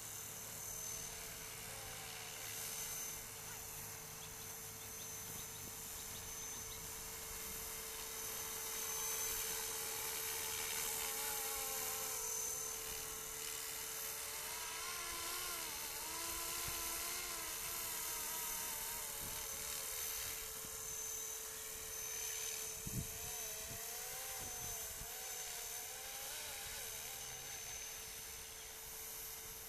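Electric 500-size RC helicopter in flight: a steady motor and rotor whine whose pitch wavers up and down as it is flown, over a constant hum. There is one brief knock partway through.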